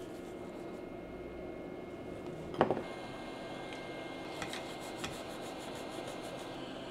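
Steady hum of running bench equipment, with one sharp click about two and a half seconds in. Near the end come a few light ticks and faint, quick rubbing strokes as a cotton swab is wiped over the circuit board's solder pads.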